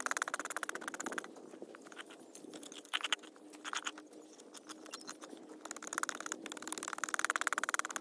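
A rapid, evenly pulsed animal trill, loud at first, drops away about a second in and returns from about six seconds. In the quieter middle, a metal scoop scrapes and clicks in dry soil as a hole is dug out.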